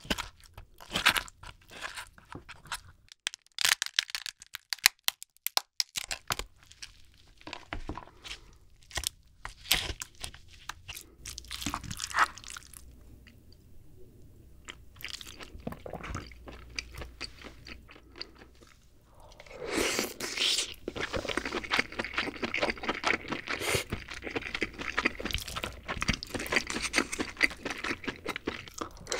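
King crab shell and meat handled close to the microphone. Scattered sharp cracks and clicks come as meat is pulled from the crab's body. About twenty seconds in, a denser, louder run of wet crackling and scraping starts as the picked crab meat is worked in the top shell with a wooden spoon.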